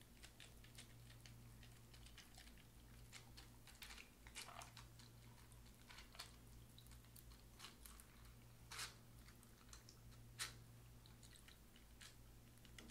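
Faint, irregular crackling and clicking of crushed ice as a stirred cocktail is poured slowly over it in a metal julep cup, with a few louder snaps, over a low steady hum.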